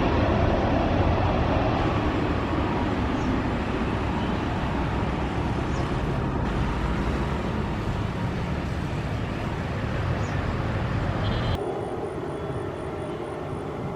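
Jet airliner engine noise: a loud, steady rush with a deep rumble that slowly fades. About two-thirds of the way through, the sound changes abruptly and the deep rumble drops away.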